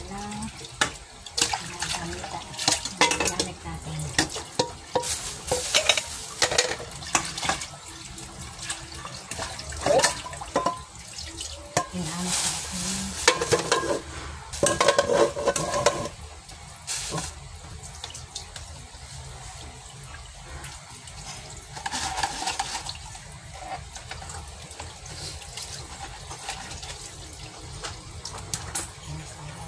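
Water splashing and sloshing as chopped banana heart is washed by hand in a plastic basin at a kitchen sink, with knocks of a bowl against the counter. The splashing comes thick for the first half, then thins out, with one more burst a little past the middle.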